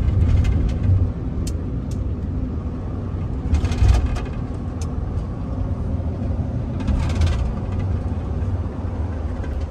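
Road noise heard from inside a moving van's cab at highway speed: a steady low rumble of engine and tyres with a hiss of wind and road. A couple of brief louder rushes stand out, about four seconds in and again about seven seconds in.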